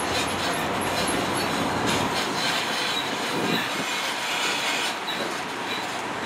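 Open-sided, tractor-towed guest tram rolling along a road, heard from on board: a steady rush of tyre, drivetrain and wind noise with the cars rattling, and faint high squeaks in the first second or so.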